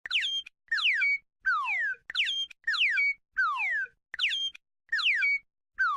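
Cartoon bird chirp sound effect: quick falling whistled notes, each call a short note paired with a longer one, repeated about nine times at an even pace.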